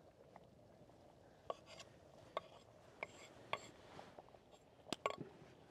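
Wooden board and wooden spatula knocking lightly against the rim of a cast-iron pot as parsley is scraped in and stirred into a stew: a few faint, irregular knocks, two in quick succession near the end.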